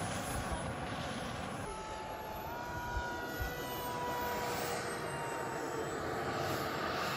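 Radio-controlled model aircraft flying. After about two seconds comes a propeller model's steady motor drone with a thin whine as it comes in low to land, its pitch stepping up slightly a little later.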